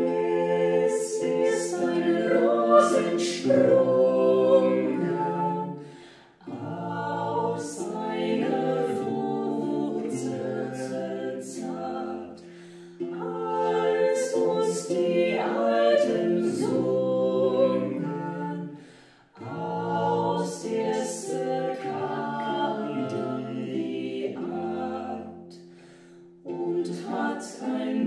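Unaccompanied choir singing an old Christmas carol in harmony, line by line, with short breaths between phrases about every six seconds.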